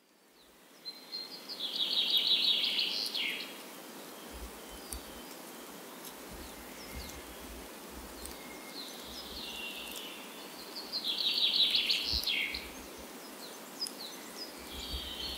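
Songbird singing over a soft, steady outdoor ambience: two phrases of rapid repeated high notes, about two seconds in and again about eleven seconds in, with faint scattered chirps between them. The sound fades in from silence at the start.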